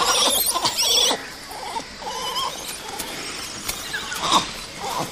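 Langur monkeys calling: shrill, wavering squeals in the first second, then fainter scattered calls, with one more short call a little past four seconds.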